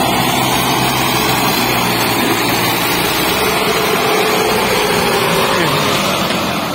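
Mahindra 275 DI tractor's three-cylinder diesel engine running hard under load, hauling a heavily loaded sugarcane trolley up a steep climb. Loud and steady, easing off slightly near the end as it moves away.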